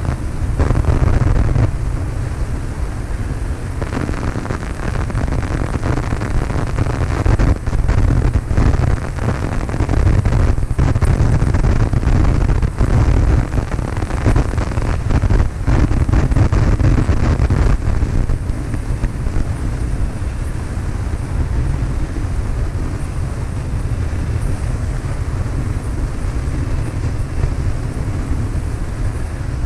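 Cessna 152's four-cylinder Lycoming engine and propeller droning steadily, with wind noise on the microphone. The sound grows rougher and a little louder for several seconds in the middle.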